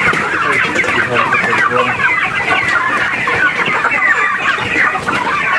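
A flock of chickens clucking, many birds calling over one another in a dense, continuous chatter as they crowd in to be fed.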